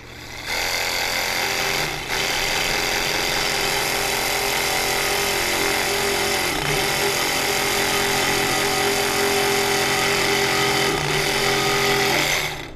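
Compact cordless reciprocating saw cutting through the thin aluminum tabs of a roof-rack side plate. It runs steadily with a brief break about two seconds in, then stops just before the end.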